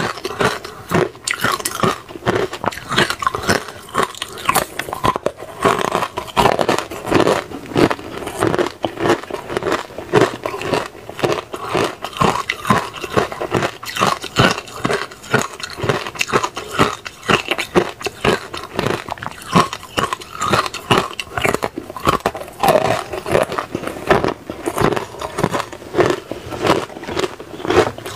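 Hard ice cubes with frozen pomegranate inside being bitten and chewed, a continuous run of crunches and sharp cracks as the ice breaks between the teeth.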